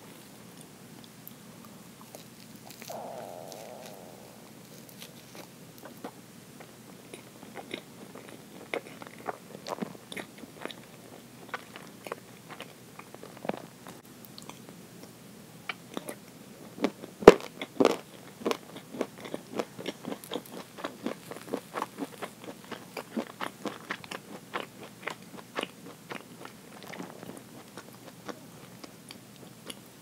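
Close-miked chewing of Mont Blanc roll cake with a nut topping: a steady run of wet mouth clicks and soft crunches, with one sharp, louder click about halfway through.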